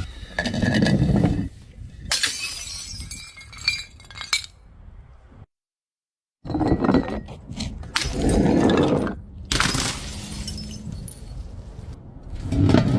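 Glass bottles being smashed one after another, each a sudden crash followed by shards clinking and rattling, about five times, with an abrupt second of silence near the middle.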